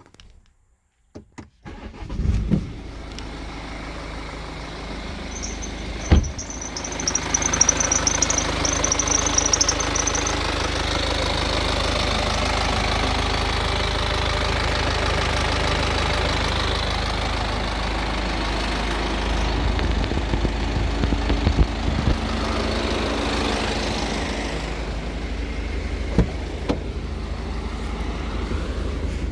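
BMW 320d diesel engine starting and running on at idle. During the start a high-pitched, wavering squeak sounds for about five seconds and then stops: the startup squeak the owner is recording.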